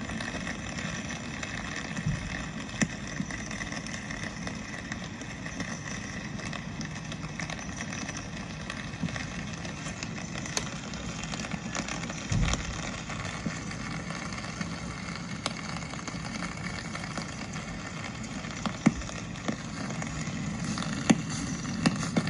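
Steady hiss of rain on a city street, with scattered ticks of drops. There is a brief low thump about twelve seconds in, and a low rumble grows slightly louder near the end.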